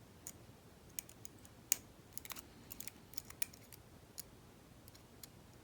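Lock pick and tension wrench working inside a US Mail registered padlock: a scatter of small, irregular metallic clicks and ticks as the picking continues.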